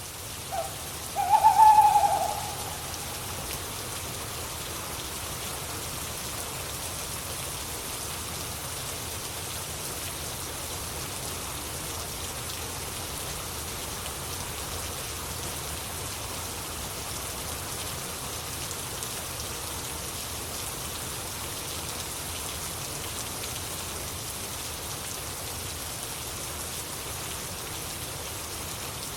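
Steady rain falling on the tarp over the hammocks. About a second and a half in, a single loud, short pitched call sounds once.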